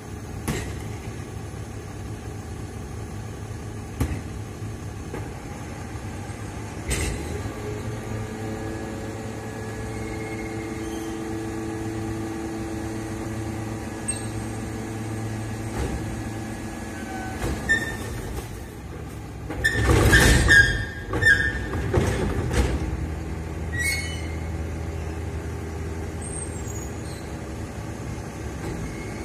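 A side-loader refuse truck runs steadily while its hydraulic bin lift raises and tips two wheelie bins into the body, with a steady hydraulic whine through the middle. About two-thirds of the way through there is a loud burst of clattering and banging from the bins and the lift, followed by a few smaller knocks.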